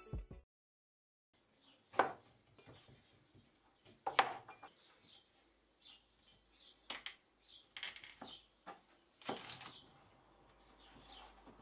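Chef's knife cutting zucchini on a cutting board: a few separate chops through the vegetable onto the board, the loudest about four seconds in, and a longer lengthwise slicing stroke near the end. Birds chirp faintly in the background throughout.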